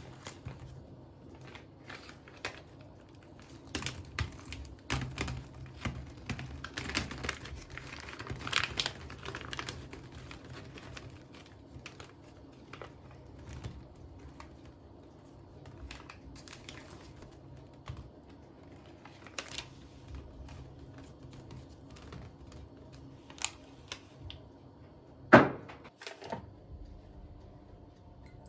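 Quick, irregular clicks and taps with some crinkling, like small objects being handled, busiest in the first ten seconds, with one sharp knock about 25 seconds in.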